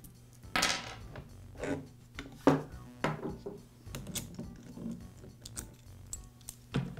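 Irregular clicks, knocks and light rattles of a chainsaw being taken apart by hand: the plastic side cover and bar nuts coming off and the saw chain being lifted from the sprocket and bar.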